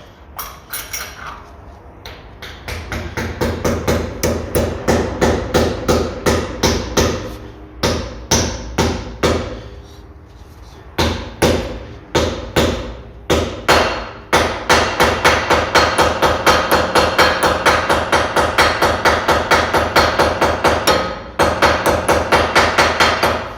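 Hammer blows on metal, a long series with a ringing tone after each strike, irregular at first and then fast and even at about three to four blows a second in the second half, pausing briefly near the end. The blows are driving the small grease cap into the rear wheel hub, a press fit.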